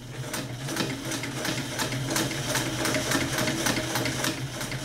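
Vintage Sears Kenmore sewing machine stitching slowly through eight layers of heavy denim, run gently on the pedal: a steady motor hum with the needle punching through about four times a second.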